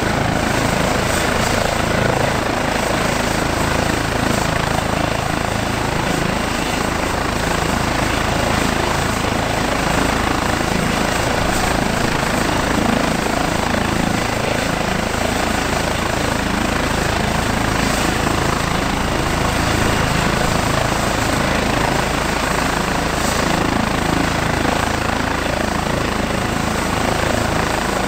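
Airbus H135 helicopter running on the ground with its twin turbine engines and rotors turning at a steady pitch: a constant, unbroken turbine whine and rotor noise.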